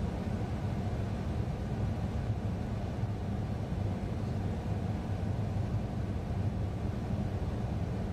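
Steady low rumbling noise with no distinct events, heaviest in the low end.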